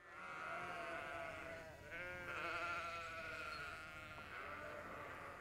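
A lamb bleating: three long, wavering bleats in a row, the second starting about two seconds in and the third fainter, trailing off near the end.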